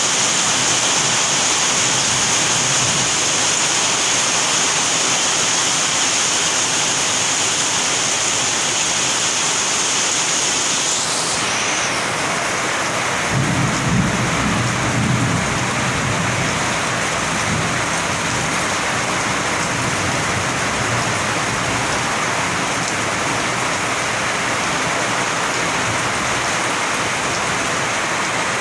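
Heavy rain falling in a steady hiss, with a low rumble of thunder about halfway through.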